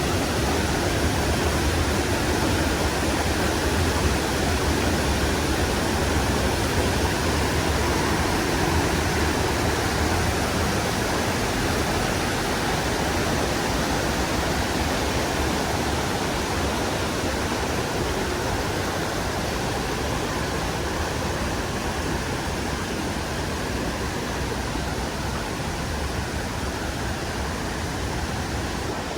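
Creek water rushing steadily over rocks, a full, even rush that eases slightly toward the end.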